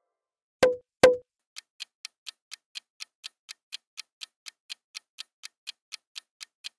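Quiz countdown-timer sound effect: a clock ticking evenly, about four ticks a second, while the answer timer runs. It is preceded by two sharp pops about half a second apart, the loudest sounds, as the new word card appears.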